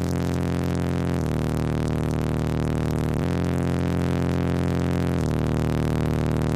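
Car audio subwoofer system playing sustained, heavily distorted bass notes. Each note is held for about two seconds before stepping to a new pitch, about a second in, three seconds in and five seconds in.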